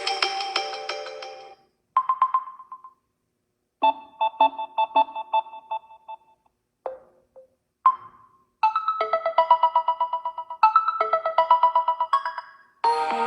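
Samsung Galaxy A15/A25 stock ringtone and notification sounds played one after another. The end of one tune fades out in the first second and a half, then come a single chime, a quick run of notes, two short blips, and finally a fast repeating melody from about halfway through, each separated by brief silences.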